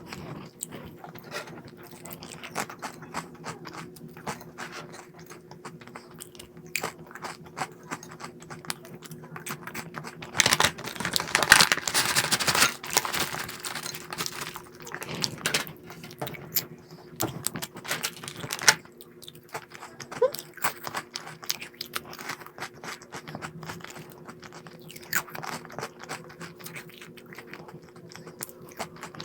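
Crunchy snack being bitten and chewed close to the microphone, a run of irregular crisp crunches that gets loudest and densest about a third of the way through.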